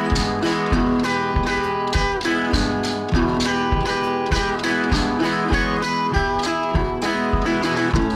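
Background music led by guitar, with a steady beat of about two thumps a second.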